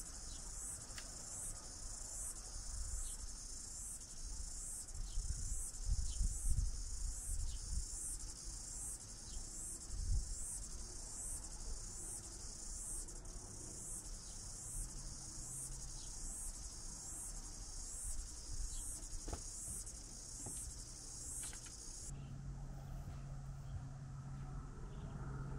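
Insects chirping in a steady, even rhythm, about one and a half high-pitched pulses a second, which stops suddenly near the end. A few low thumps come about six and ten seconds in.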